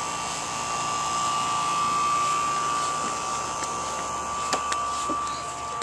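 Outdoor air-conditioning condenser unit running: a steady high whine over a hiss that eases off near the end. A few light knocks come about four and a half seconds in.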